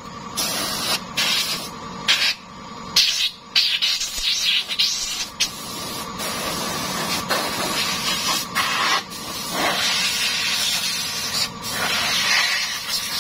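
Compressed air hissing from a blow-gun nozzle on an air-compressor hose, blown into an air-conditioner unit's coil and fins. It comes in short, broken blasts at first, then in longer, steadier runs from about five seconds in.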